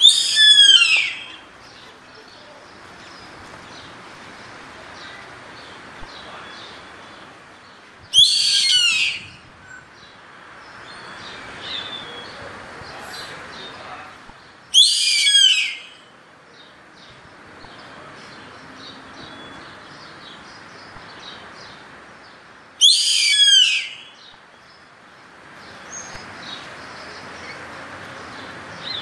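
Yellow-headed caracara calling four times, roughly every seven to eight seconds. Each call lasts about a second and falls in pitch.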